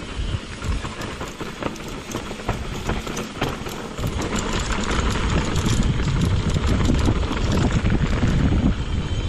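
Mountain bike riding fast down a rough trail, the bike rattling and clattering with many quick clicks and knocks. Wind buffeting the microphone grows louder about four seconds in as speed picks up.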